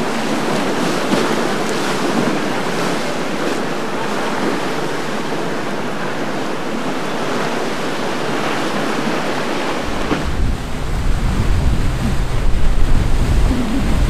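Rushing, churning water of turbulent canal waves and boat wake, a steady loud wash. About ten seconds in, a heavy low rumble joins it and gets louder.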